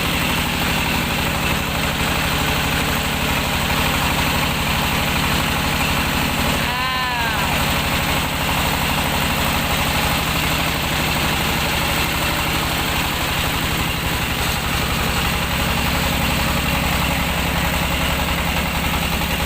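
Engine of a mobile rice milling machine running steadily with a low, even drone. About seven seconds in, a brief rising-and-falling tone sounds over it.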